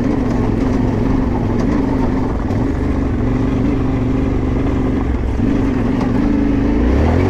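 Yamaha Ténéré 700's parallel-twin engine running at steady low revs under way. A brand-new engine still being run in. The pitch wavers slightly and rises a little near the end.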